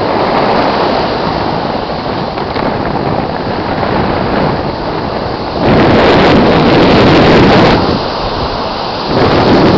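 Ocean surf breaking, with wind buffeting the microphone. There is a louder surge lasting about two seconds from about six seconds in, and another near the end.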